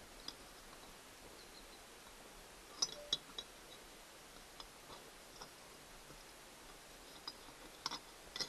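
Sparse light clicks and clinks of a metal mounting plate being handled and fitted against a camper door-lock body, with a pair of sharper clicks about three seconds in and a cluster near the end.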